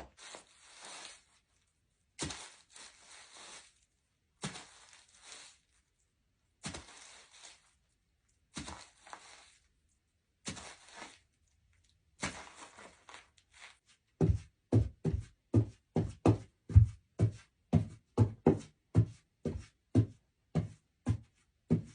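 Foley effects performed by hand: separate scuffing, rustling strokes about every two seconds. About fourteen seconds in they give way to a fast, even run of heavier thuds, about three a second.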